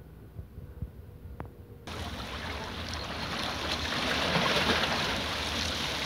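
Faint low wind rumble, then about two seconds in an abrupt change to a louder rush of sea water lapping and washing, which swells toward the middle.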